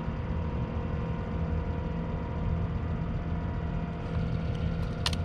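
A steady low engine-like drone with a faint even hum, and a couple of short clicks near the end.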